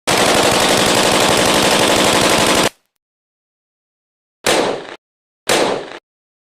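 AK-47 assault rifle sound effect: a long burst of automatic fire lasting about two and a half seconds, then two short bursts about a second apart.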